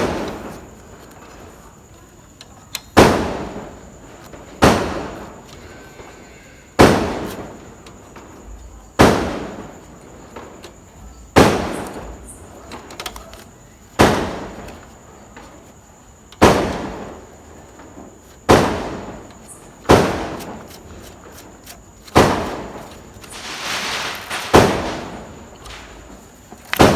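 Sharp metallic clacks, about one every two seconds, each ringing away over a second or so, from work on a motorcycle's rear brake lever and rod linkage.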